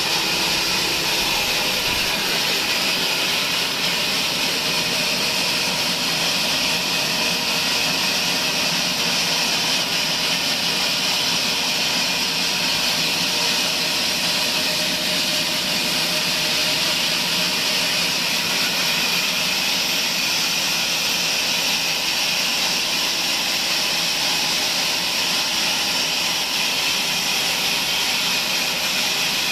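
Sawmill band saw running, a steady high hiss that holds the same level with no breaks.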